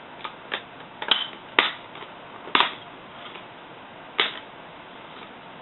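Plastic clips of a laptop screen bezel snapping loose one after another as the frame is pried off: about six sharp clicks at uneven intervals, the loudest in the first three seconds.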